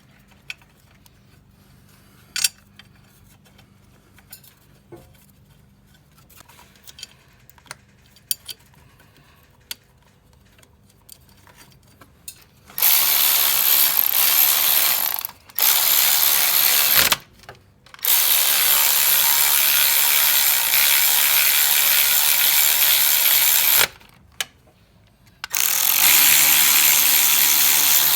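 Light clicks and taps of parts and bolts being handled, then, about halfway through, a cordless power ratchet running bolts in with four spells of loud, steady whirring and short pauses between them.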